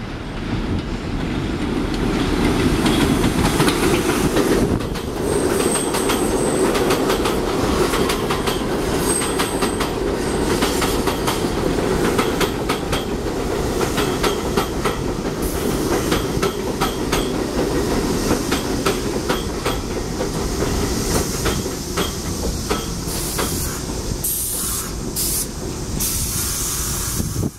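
Bombardier R62A subway train running into a station: a steady rumble of wheels on rail with rapid clicking over rail joints and two short high squeals, about five and nine seconds in. Hissing picks up near the end.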